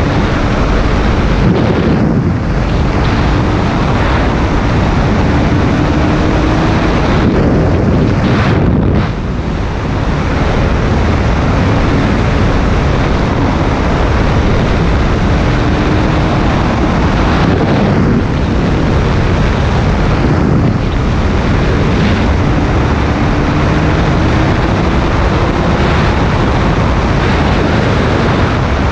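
Heavy wind buffeting on the microphone of a motorcycle riding at road speed, with the bike's engine faintly beneath it, its note rising slowly several times as it pulls.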